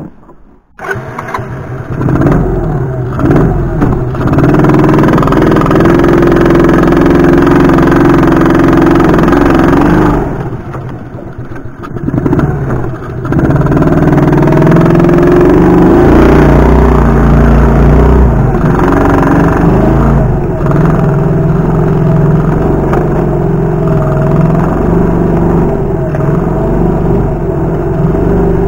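A buggy's 50cc Cub-type single-cylinder four-stroke engine running under throttle while driving. It comes in after a moment of near silence at the start, eases off for a few seconds about a third of the way in, then pulls again.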